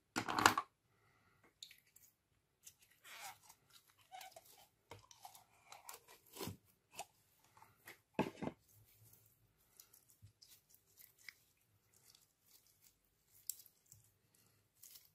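Slime being tipped out of its plastic tub and squeezed by hand, making scattered crunchy, crackling sounds. The two loudest come just after the start and about eight seconds in.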